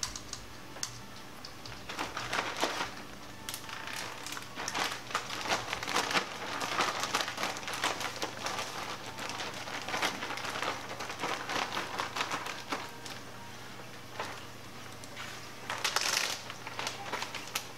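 Plastic zip-top bag crinkling and rustling in irregular bursts as floured mushroom pieces are worked inside it, with a louder burst near the end.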